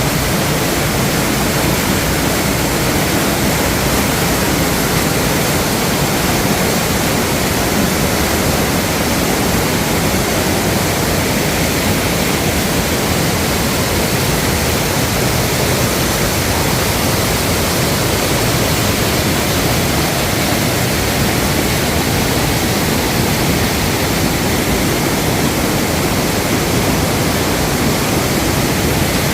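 Waterfall in a mountain stream: a steady, loud rush of falling water that does not change.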